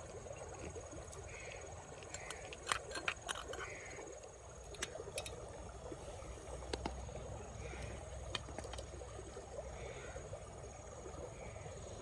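Faint outdoor ambience: a steady background hiss with a thin high steady tone, short animal calls recurring every second or two, and a handful of sharp clicks a few seconds in.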